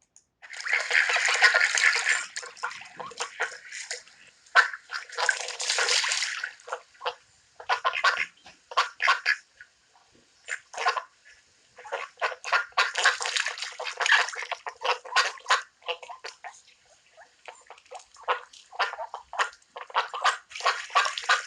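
Water splashing and sloshing in irregular bursts and quick runs of short splashes, with brief lulls.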